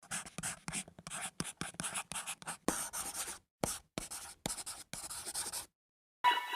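Sheet of origami paper being handled and folded: a run of short scratchy rustles and crease strokes, stopping about a second before the end, when music comes in.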